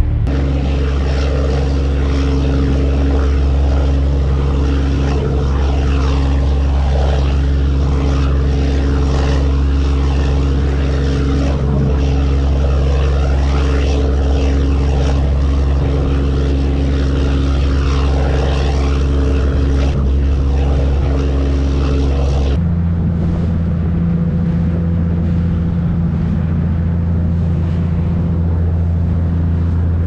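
A ferry's engine droning steadily under a hiss of water and wind. About two-thirds of the way through, the sound cuts abruptly to a different, steady engine tone.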